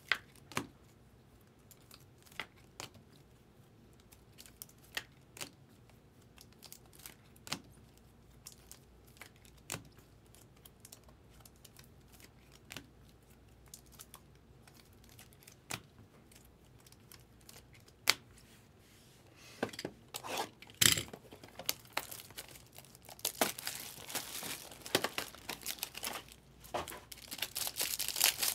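Scattered light plastic clicks and taps as trading cards are slid into soft sleeves and hard cases, then, for the last several seconds, a foil trading-card pack crinkling and tearing open.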